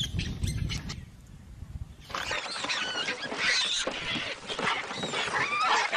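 A low rumble for about the first second, then a short lull, then a troop of baboons calling over one another from about two seconds in.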